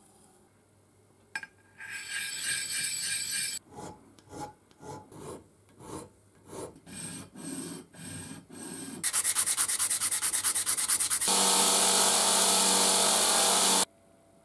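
Hand file scraping across the edge of a steel hex nut held in a vise: a long scrape, then about ten strokes at roughly two a second, then quicker strokes. Near the end a loud steady machine noise with a low hum runs for a couple of seconds and cuts off sharply.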